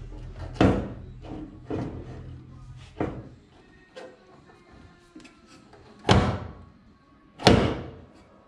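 Short lowering coil spring being worked out of a car's front spring pocket, clunking against the steel shock tower and control arm: a handful of sharp clunks, the two loudest near the end.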